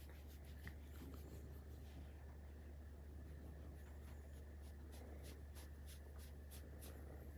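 Faint rubbing of a hand stroking a Maine Coon's long fur, over a low steady hum, with a quick run of faint ticks toward the end.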